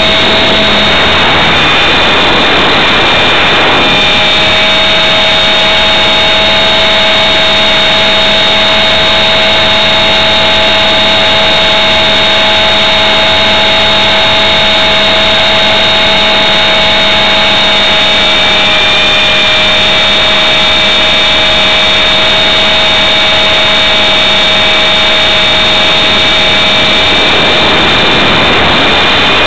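Blade 400 electric RC helicopter's motor, gears and rotor whining loudly and steadily, picked up by the onboard camera's microphone. The pitch holds mostly steady, with small shifts, over a rushing noise.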